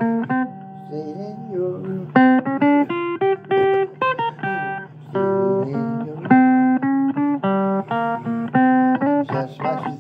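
Blues guitar music: a run of picked single notes and short phrases, some bent in pitch, over a low held bass.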